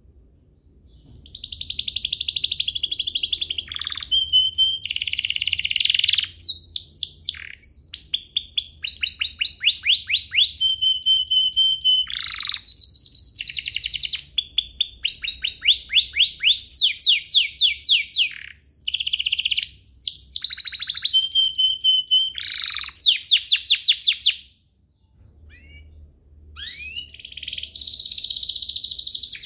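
Domestic canary singing a long, fast song of trills, rolls and quickly repeated rising and falling notes. About 24 s in it breaks off for a couple of seconds with a few soft notes, then starts singing again.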